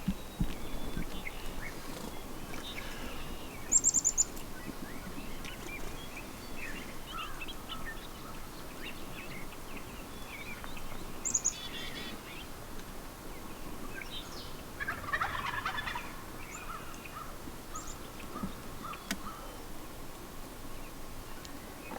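A wild turkey gobbling, loudest about fifteen seconds in, amid songbirds chirping.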